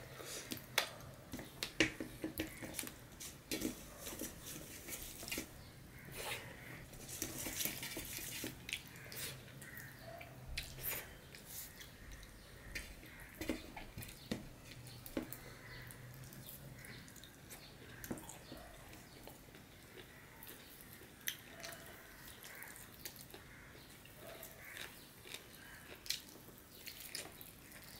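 Close-up eating sounds: wet chewing, lip smacks and small irregular clicks as rice and curry are eaten by hand, with fingers mixing and scraping rice on a steel plate.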